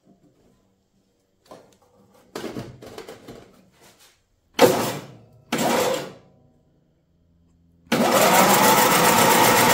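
Electric starter cranking the tractor's Briggs & Stratton Twin I/C engine for a little over two seconds near the end, a steady, evenly pulsing turning-over that does not catch: the starter works, and the engine, still without fuel, does not fire. Before it, light clicks and rattles, then two short loud bursts about halfway.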